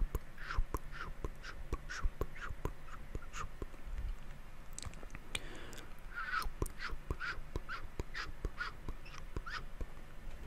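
Close-miked wet mouth sounds: a rapid string of tongue clicks and smacks, in two runs with a short pause in the middle.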